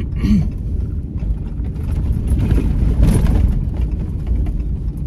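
Truck driving at low speed: a steady low engine and road rumble, with a brief rush of noise about three seconds in.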